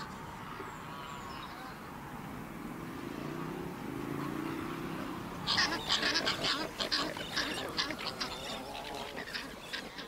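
A crowded flock of Australian pelicans: a faint low murmur at first, then from about halfway a quick, dense run of short clattering calls and clicks.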